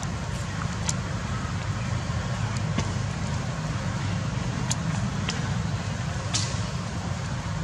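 Steady low outdoor rumble with an even hiss over it, broken by a few brief sharp ticks.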